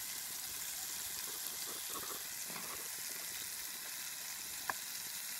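Pieces of flathead fish sizzling steadily in hot oil in a frying pan over a campfire, with a few faint crackles and one sharp click near the end.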